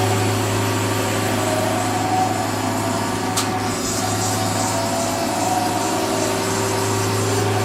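Haas ST20 CNC lathe's Z-axis servo drive jogging the carriage: a steady machine hum, with a single click about three and a half seconds in.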